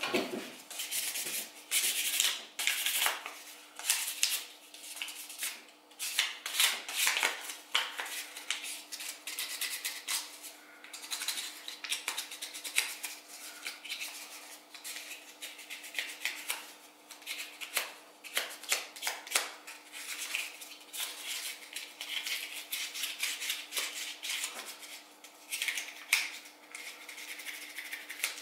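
Hands working a stiff kydex sheath: repeated plastic scrapes, rubs and small clicks at an uneven pace.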